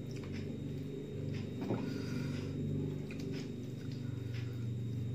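Small clicks and rustles of hands folding raw leaves and eating at a table, over a steady low hum.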